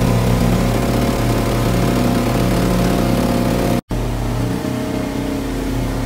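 Passenger boat's engine running steadily at cruising speed, with water rushing along the hull. The sound cuts out for a split second about four seconds in, then carries on slightly quieter.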